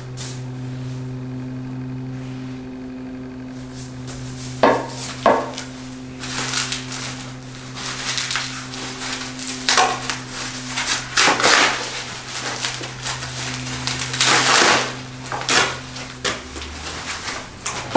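Plastic wrapping crinkling and tearing as it is pulled off roof-rack bars, with irregular knocks and clatter as the metal bars are handled and set down. A steady low hum runs underneath for most of the time.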